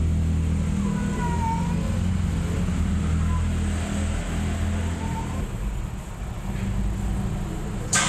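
Steady low hum of a running engine, with a few faint, short mews from a kitten about a second in and again later. A brief noisy burst right at the end.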